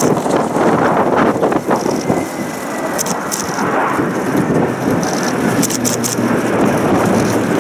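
Steady rumble of aircraft engines overhead: a KC-130 tanker's four turboprops and two F/A-18 Hornets' jet engines flying together in an aerial-refueling formation. A low hum joins in near the end.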